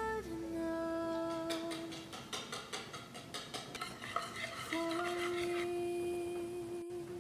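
Wire whisk beating a runny egg-and-sugar mixture in a ceramic bowl, rapid clinking strokes for about four seconds starting about a second and a half in. Soft background music with long held notes plays underneath.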